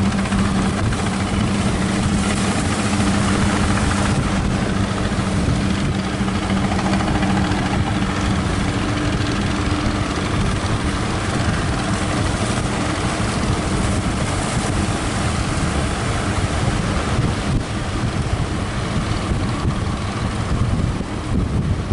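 Speedboat engine running with a steady hum under heavy wind buffeting the microphone and rushing water; the engine hum fades about halfway through, leaving wind and waves.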